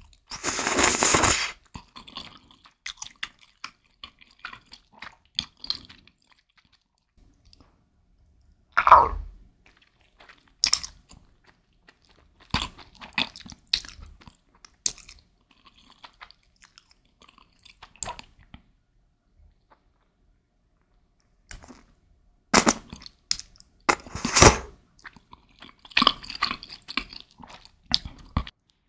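Close-miked eating of spicy ramen noodles and sliced beef: a loud noodle slurp lasting about a second at the start, then wet chewing with small mouth clicks and smacks. Further short slurps and chewing come in clusters, with quiet gaps between.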